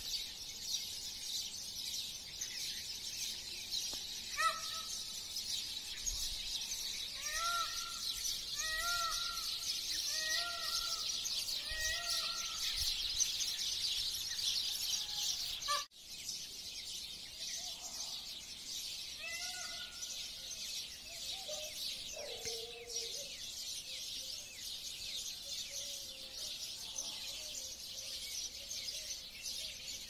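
Birds calling at dawn: a steady, dense high chirping throughout, with one bird repeating a short arched call about five times in the first half and calling again later. The sound drops out briefly about halfway.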